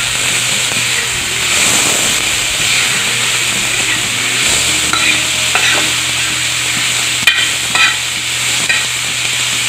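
Chopped vegetables and tomatoes sizzling in butter on a flat tawa as a metal spatula stirs and scrapes them around, with a few sharp clinks of the spatula against the pan in the second half.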